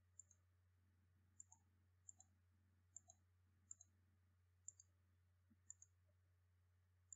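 Faint computer mouse clicks: about eight quick press-and-release double clicks, roughly one a second, selecting frame lines one by one in the drawing.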